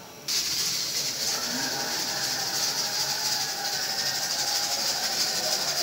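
Aluminium pressure cooker venting steam through its weight valve: a loud, steady hiss that starts suddenly about a third of a second in. Steam venting like this is the sign that the cooker has come up to pressure.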